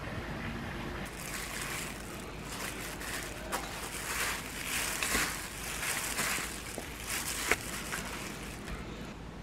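A plastic-gloved hand tossing spicy cold noodles with lettuce and cucumber in a stainless steel bowl, starting about a second in. It is a wet rustling and crinkling that comes in surges, with a few sharp ticks against the bowl.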